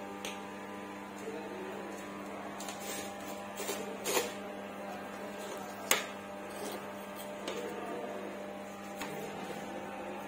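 A steady electrical hum, with scattered sharp clicks and knocks of metal parts and tools being handled; the loudest knocks come about four and six seconds in.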